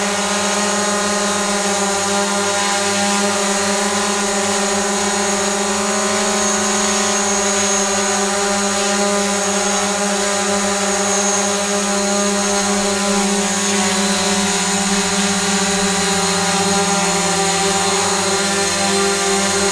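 DJI Mavic Pro quadcopter hovering close by, its four propellers giving a loud, steady buzzing whine that wavers a little in pitch about two-thirds of the way through as the drone shifts position.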